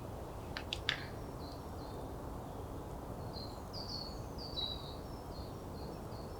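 Wood campfire burning with a steady low hiss and a few sharp pops just under a second in. A bird repeats short high chirps through the second half.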